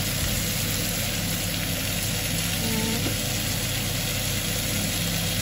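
Tomato pieces with a dried red chilli sizzling steadily as they fry in a pan, with a steady low hum underneath.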